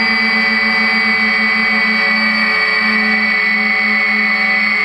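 3DR IRIS+ quadcopter's four brushless motors and propellers in flight, heard from the onboard GoPro: a steady high whine over a low hum that throbs at a steady pace.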